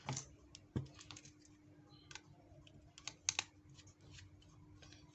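Scattered small clicks and taps of a plastic feature-phone housing being handled and a precision screwdriver being set into its screws, the loudest pair a little past three seconds in. A faint steady hum runs underneath.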